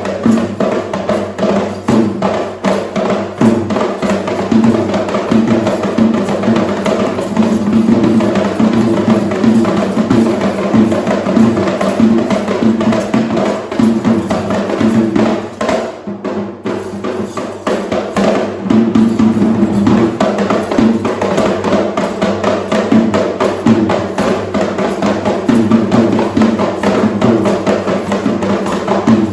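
Sri Lankan traditional drums played in a fast, dense rhythm for dance. The drumming thins briefly about halfway through, then picks up again.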